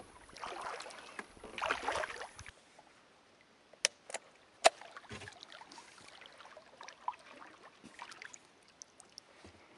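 Kayak paddle strokes, two swishing pulls through the water, then much quieter with three short sharp clicks about four seconds in.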